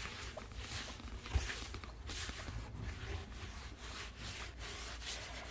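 Straw brush scrubbing the inner clay wall of a tandoor oven in quick rasping strokes, roughly two or three a second, knocking loose soot and grit before bread is baked.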